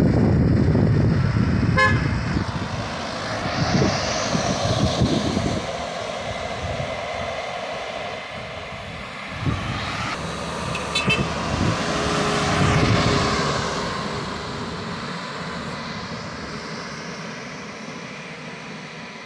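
Road traffic passing on a hill road: engine and tyre noise from a minibus, a car and trucks, loudest and low-pitched at the start and fading away, with a short horn toot about two seconds in.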